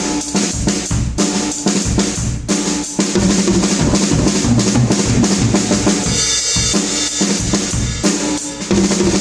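Drum kit playing a busy beat of bass drum, snare and cymbals, with low pitched bass notes underneath.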